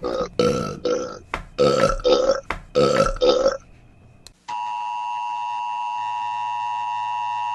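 A rapid string of short belches, about three a second, for the first three and a half seconds. About a second later a steady electronic tone comes in and holds: the emergency broadcast system attention signal.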